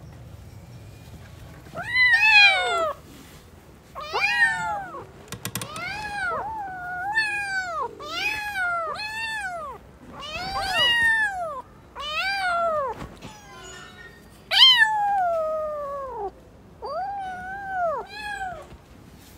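A cat meowing over and over: about a dozen short meows, each rising then falling in pitch, one every second or two.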